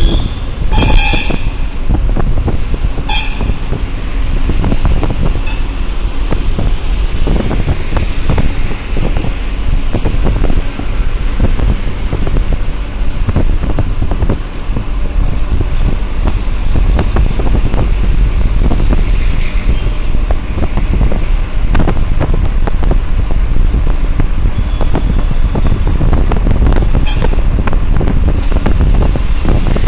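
Busy road traffic with a steady low rumble, and vehicle horns honking: a couple of toots near the start and another near the end.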